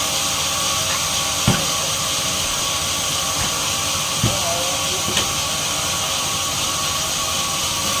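Sawmill machinery running steadily with a loud, even hiss, and a couple of short knocks about a second and a half and four seconds in.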